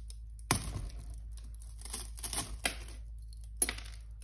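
Shattered tempered glass pane crackling: a sharp crack about half a second in, a run of small cracks and clicks, then another sharp click near the end. The crazed pane is still cracking and settling after being shot.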